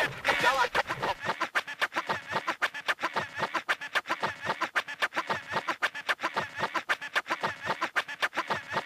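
Electronic music: a fast, even stutter of short clicks, about eight a second, with its bass dropping away about a second in.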